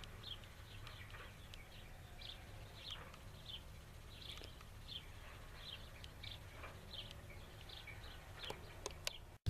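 Small birds chirping, short high chirps about twice a second at an uneven pace, over a faint steady low rumble.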